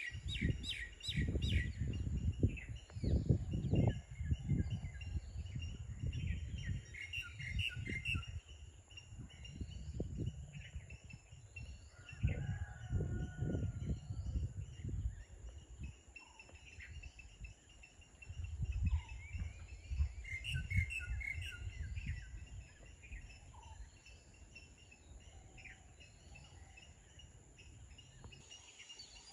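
Birds chirping outdoors in short clusters of rapid notes, near the start, about a quarter of the way in and again about two-thirds through. They sound over low, gusty rumbling that dies down in the last few seconds, with a faint steady high-pitched whine throughout.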